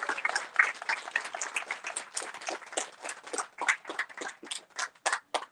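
Small audience applauding, the clapping thinning out to a few scattered, separate claps near the end.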